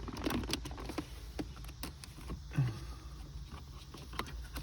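Scattered light clicks and taps of plastic interior trim around a car's gear shifter being handled and worked loose.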